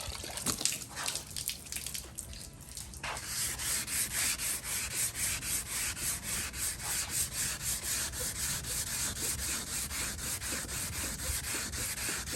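320-grit sandpaper on a Durablock sanding block, wet-sanding the clear coat on a plastic ride-on toy truck body. A few scattered strokes give way, about three seconds in, to steady back-and-forth sanding strokes, knocking down high spots and dust nibs in the clear.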